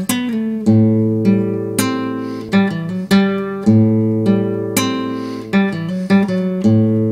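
Clean-toned electric guitar played solo, strumming a repeating chord pattern: a new chord struck about every half second, each left to ring and fade.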